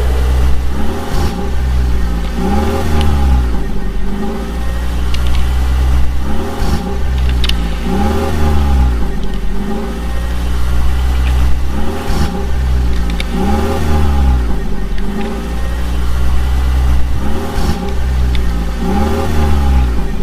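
Engine sound revving up and down in a regular repeating cycle, two rises and falls about every five and a half seconds over a steady low hum, like a looped toy-vehicle engine effect.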